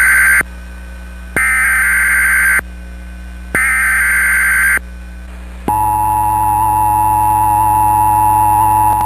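Emergency Alert System SAME header: the tail of one buzzy data burst, then two more, each about a second long with a second's gap. About five and a half seconds in, the steady two-tone EAS attention signal begins and holds. Together they herald a Child Abduction Emergency (Amber Alert) message.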